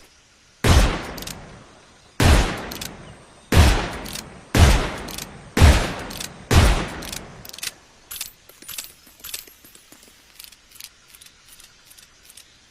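Colt single action revolver firing six shots, about one every second or so, each with a short fading echo. Then a series of lighter metallic clicks.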